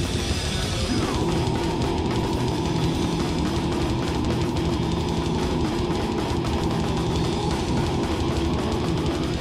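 Live heavy metal band playing loud: distorted electric guitars and bass over fast drumming with crashing cymbals.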